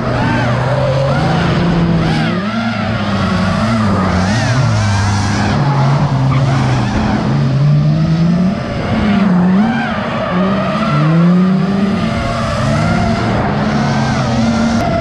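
Drift cars sliding through corners, their engines revving and tyres squealing, mixed with the whine of a low-flying FPV racing drone's motors; several pitches keep rising and falling with the throttle.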